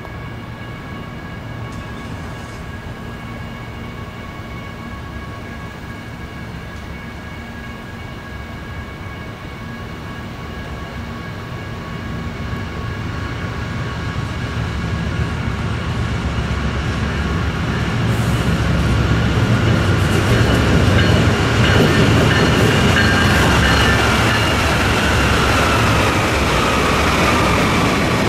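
A freight train led by three BNSF GE diesel locomotives (the lead one an ES44DC) approaches and passes, its sound growing steadily louder over about twenty seconds. Near the end, double-stack container cars roll past.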